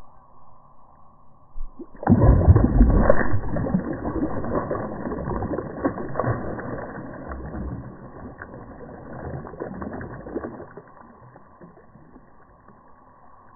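A Murray cod kicking free after being released by hand, thrashing and splashing hard in shallow water. The dull, heavy splashing bursts in about two seconds in and dies away over several seconds.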